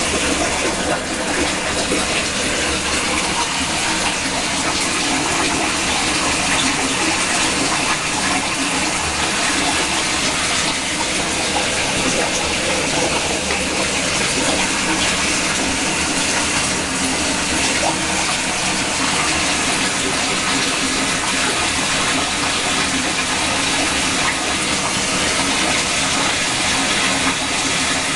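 A steady, even rushing noise that does not change or break.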